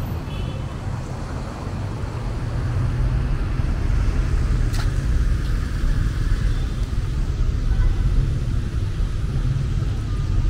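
Street traffic: cars passing with a steady low engine rumble that grows louder a few seconds in, and one sharp click near the middle.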